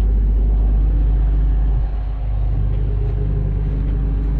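Case IH 7088 combine's diesel engine running steadily with a low rumble, dipping slightly about halfway through.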